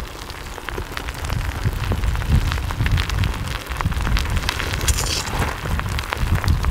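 Pahoehoe lava crackling with many small sharp ticks as its cooling glassy crust cracks open and a fresh toe of molten lava swells out, over a steady low rumble.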